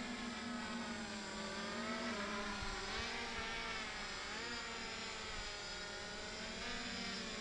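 Hexacopter in flight, its six electric motors and propellers humming steadily, the pitch rising and falling a few times as the motor speeds change.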